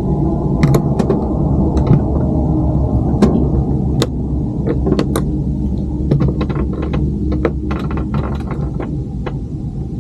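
Sharp plastic clicks and taps as a mobile phone is worked into a dashboard phone mount, coming in clusters and thickest in the second half. A steady low hum runs underneath.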